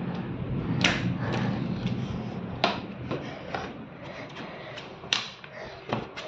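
Sliding glass window being handled and slid in its frame, with several sharp clacks.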